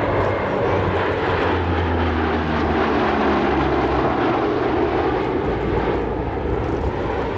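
A Lockheed C-130H Hercules, its four Allison T56 turboprop engines and propellers making a loud, steady drone as it flies past low overhead in a banking turn.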